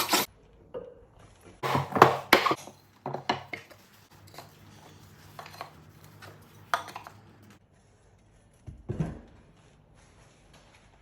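Irregular hard clinks and knocks of tools and wood being handled at a workbench. The loudest cluster comes about two seconds in, and a faint steady low hum runs through the middle.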